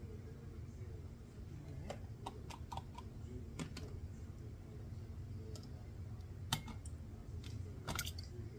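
Scattered light clicks and knocks of dishes being handled in a kitchen, over a low steady hum. There is a sharper click about six and a half seconds in and a few more near the end.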